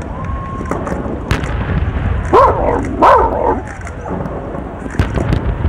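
A dog barking close to the microphone, with two loud bouts of barks about two and a half and three seconds in, over a steady low rumble of wind on the microphone.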